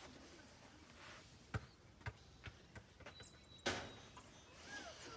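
Several faint, separate sharp clicks and knocks of hand tools being handled, the loudest one about three and a half seconds in.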